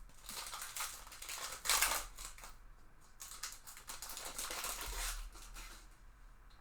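Trading cards and their packaging being handled: dry rustling and sliding of card stock, with a louder scrape about two seconds in.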